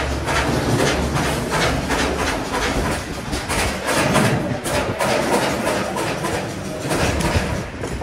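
Resistance spot welder joining the steel wires of a cage panel: a steady low hum with repeated sharp cracks as the electrode presses and welds each crossing. The hum is strongest at the start and again near the end.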